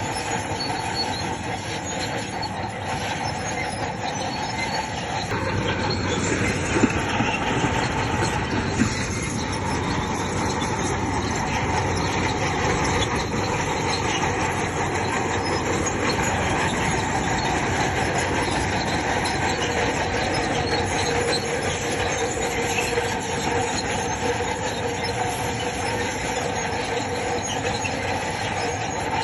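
Crawler bulldozer working, its engine running steadily under the squeal and clank of its steel tracks, with a couple of sharp knocks about seven and nine seconds in.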